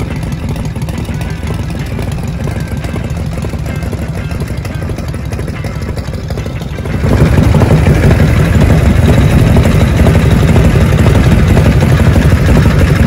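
Vintage Harley-Davidson V-twin chopper engine idling through open twin exhaust pipes, a loud, uneven low throb. It becomes louder and fuller about seven seconds in.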